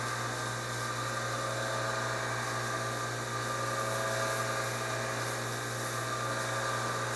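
A machine's steady electric hum and whir, even and unchanging throughout.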